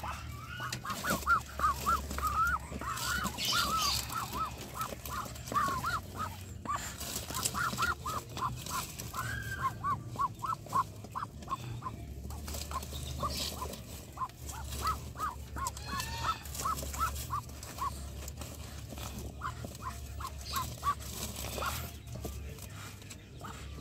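Muscovy duck hen on her nest calling in a rapid run of short notes, several a second, which stop shortly before the end, while a hand rustles among her feathers and eggs. The calls come as she is disturbed on the clutch.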